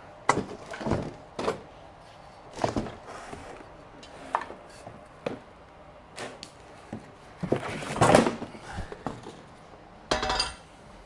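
Steel truck-crane and winch parts being handled and set down while unpacking: irregular knocks, clunks and clinks, with a busier cluster about eight seconds in and a short rattling clatter near the end.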